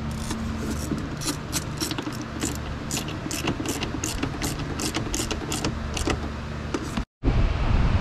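A run of irregular sharp clicks, two to four a second, over a steady low hum. About seven seconds in the sound cuts out for a moment, then comes back as a louder rumbling rush like wind on the microphone.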